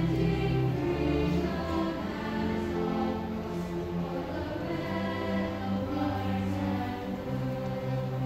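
Large mixed school choir singing long held chords, accompanied by bowed cellos and double bass.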